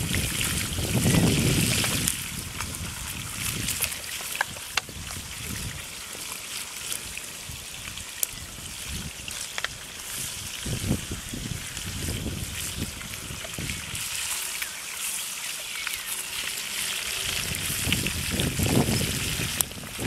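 Fish frying in hot oil in a pan, a steady sizzle, with a few light clicks of a utensil against the pan. Gusts of wind on the microphone come and go, strongest near the start and the end.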